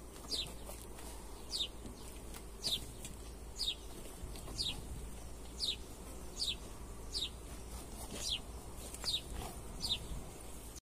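A bird calling over and over: a short high note falling in pitch, about once a second, over a steady low rumble. The sound cuts off suddenly near the end.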